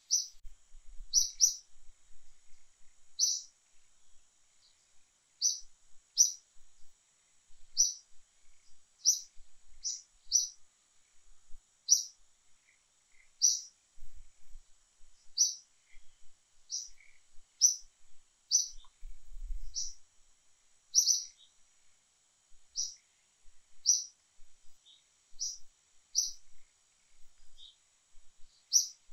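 A bird chirping short, high notes, irregularly about once a second, over a faint steady high-pitched hum.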